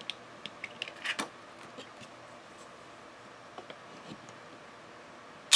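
Light clicks and taps of paper and a plastic acetate sheet being handled on the craft desk, then one sharp knock near the end as a wood-mounted rubber stamp is pressed down onto the card.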